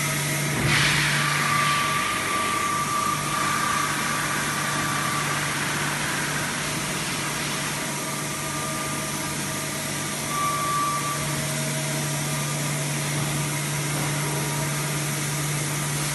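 Steady electrical and mechanical hum of a powered-up Okuma vertical machining center. A constant low hum sits under a faint high whine that comes in twice, once early and again about two-thirds of the way through.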